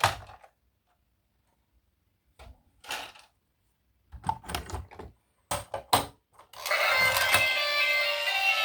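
Short bursts of clicking and knocking from plastic toys being handled, separated by dead silence. About two-thirds of the way through, a toy's electronic sound effects and tune start up and keep going.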